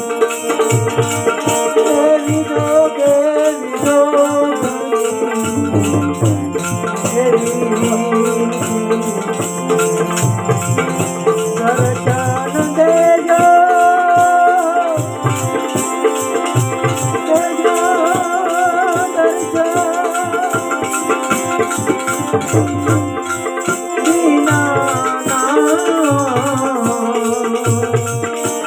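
Devotional bhajan music without words: a melody played over a drum beat, with hand percussion rattling in a fast, steady rhythm.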